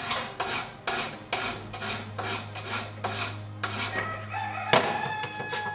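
Hand file rasping across the head of a steel coach bolt clamped in a vise, cutting a flat to make a T-bolt: about ten quick strokes, two to three a second, then one sharp knock near the end.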